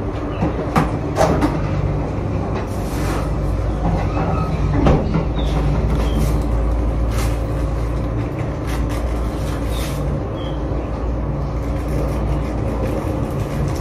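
A steady low mechanical rumble with a faint hum runs throughout. Over it come short clicks, knocks and rustles of things being handled on a kitchen counter, the loudest near the start and about five seconds in.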